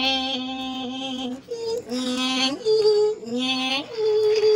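A voice singing a melody of long held notes, jumping up to a higher note and back down several times.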